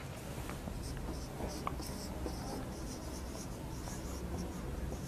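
Faint marker pen scratching on a whiteboard in a series of short strokes as a word is written.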